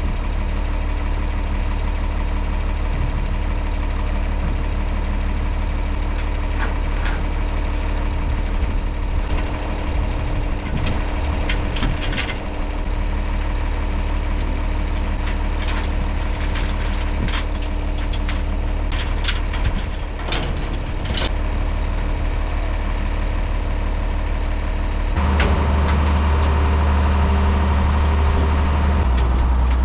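Large engine idling steadily, then running louder from about twenty-five seconds in.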